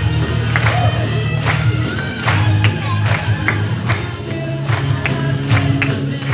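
Music played loud with a steady drum beat and a heavy bass line, over the noise of a crowd.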